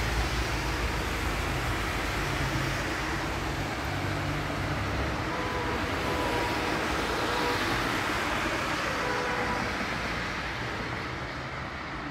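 City street traffic: a steady wash of passing-vehicle noise, with a low engine rumble that fades about four seconds in and a faint thin whine that comes and goes in the middle.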